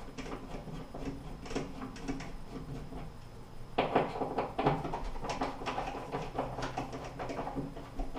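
Hand screwdriver turning a screw in a metal towel-bar bracket set into a drywall molly anchor: small scattered clicks and scrapes. A denser run of scraping and clicking starts a little under four seconds in.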